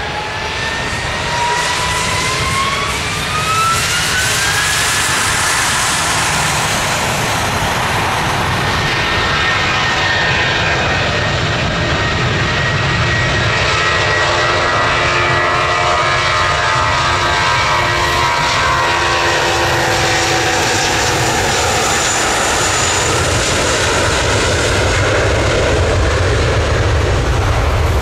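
IAE V2500 turbofans of an Airbus A320 spooling up to takeoff thrust, a rising whine over the first few seconds, then a steady jet roar as the airliner accelerates down the runway past the listener.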